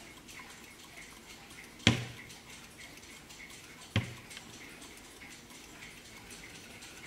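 Warmink mantel clock ticking steadily and faintly, with two sharp knocks about two seconds apart as the wooden case is handled and turned on the table.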